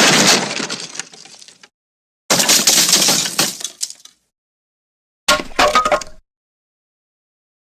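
Three separate breaking-glass crashes, one after another with dead silence between: each starts with a sharp smash and trails off into tinkling shards. The third, about five seconds in, is shorter and has clear ringing clinks.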